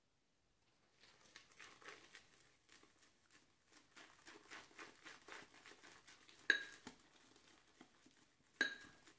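Synthetic shaving brush swirled and worked in a lather bowl, making soft wet, crackling strokes as a soft shaving soap is built into a pasty lather with small additions of water. Twice, about two-thirds of the way in and near the end, the brush clinks sharply against the bowl with a brief ring.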